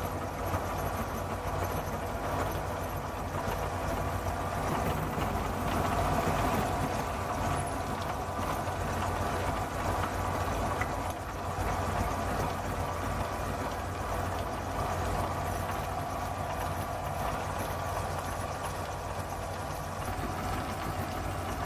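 Small milling machine running steadily, its cutter taking a pass across the end of a screw shaft to mill a 3/8-inch square drive.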